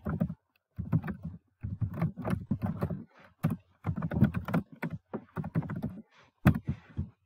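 Typing on a computer keyboard: quick runs of keystrokes in short bursts with brief pauses between them.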